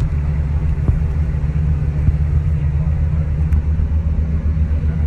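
Tour jet boat's engine running steadily with a deep, even rumble.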